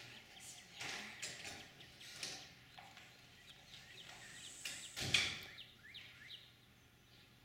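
Quiet outdoor ambience with faint birds chirping in short, scattered calls. A brief, louder noise comes about five seconds in.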